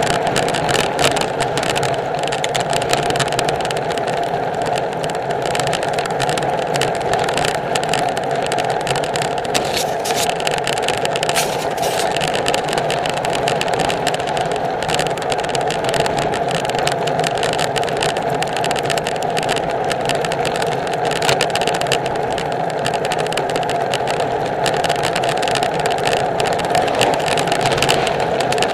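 Steady wind and road noise picked up by a handlebar-mounted camera on a road bicycle riding at speed, with many small rattling clicks from the mount.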